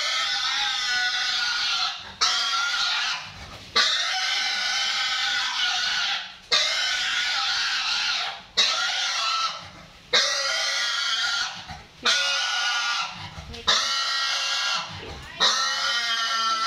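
Piglet screaming in long, high-pitched squeals, one after another about every two seconds with a short breath between each. It is in distress while being held down and castrated without anaesthetic.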